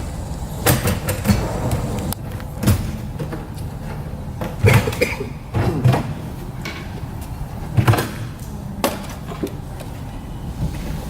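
Sharp metal knocks and clunks from a lateral file cabinet's drawer and lock-bar hardware being handled, about seven of them spread unevenly through, over a steady low hum.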